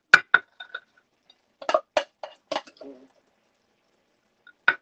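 Black serving spoon knocking against the saucepan and plate while rice is spooned out: a couple of sharp clinks at the start, a quick run of four about two seconds in, then one more near the end.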